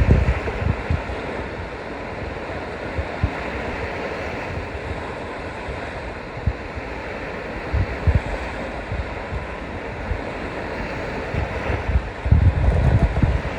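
Steady wash of waves and water, with wind buffeting the microphone in low rumbling gusts near the start, about eight seconds in, and again near the end.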